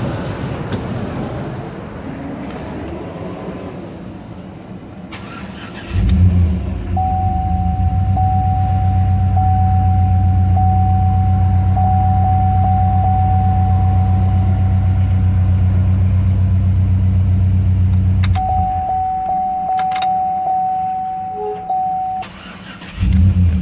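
GMC Envoy Denali's 5.3-litre V8 starting suddenly about six seconds in and running steadily, after a no-start fault traced to a missing ground at a relay in the fuse box. It stops after about twelve seconds and starts again near the end, with a thin steady high tone heard over the running engine.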